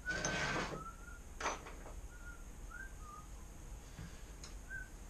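Rattling and scraping of a motorcycle drive chain being worked off its sprockets, loudest in the first half-second and again about a second and a half in. Short high chirps or squeaks come every half-second or so between.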